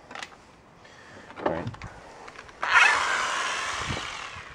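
A power drill turning a Speed Out extractor bit in reverse to back out a seized, stripped bolt. It starts abruptly with a burst, runs for about two seconds and tapers off, after a few light clicks and a knock.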